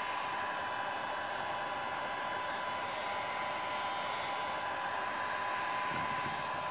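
Handheld electric heat gun running steadily: an even rush of blown air with a thin steady whine from its fan motor.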